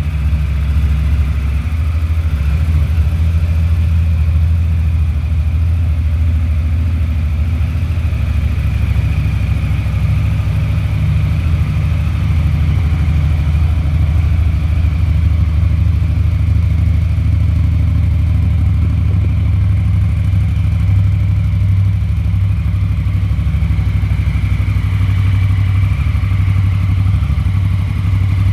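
Honda CRF1000L Africa Twin's 998 cc parallel-twin engine idling steadily.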